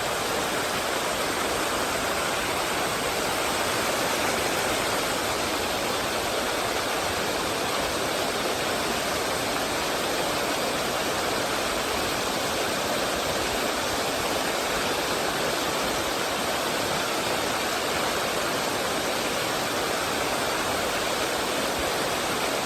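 Mountain stream water rushing steadily and evenly.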